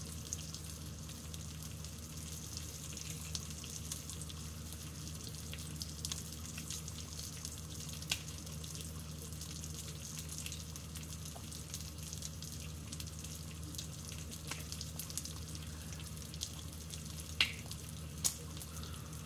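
Bacon frying in a pan: a steady sizzle of hot fat with scattered sharp pops, the two loudest near the end, over a low steady hum.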